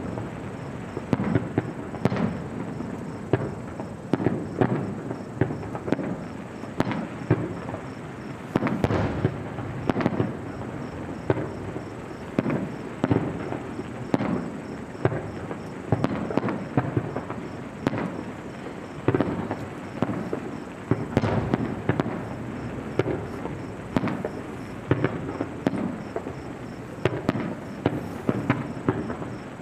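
Fireworks display: a continuous barrage of aerial shell bursts, with irregular bangs several times a second.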